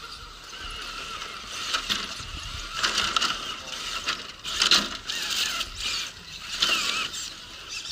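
Radio-controlled rock crawler driving over rough ground: its electric motor and gears whine in short spurts that rise and fall as the throttle is worked, with clicking and clattering along the way.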